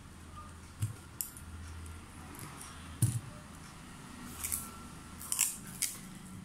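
Handling noise of paper, fabric swatches and a roll of cello tape: scattered light taps and rustles, with a few short rasps in the second half, over a faint low hum.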